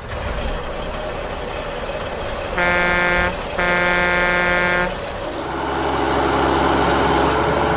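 Truck horn sounding twice, a short honk and then a longer one, followed by an engine starting to run steadily about five seconds in.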